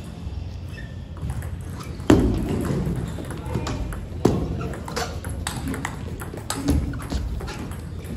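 Table tennis rally: the ball clicking sharply off the bats and the table at an uneven pace, with the hardest knock about two seconds in.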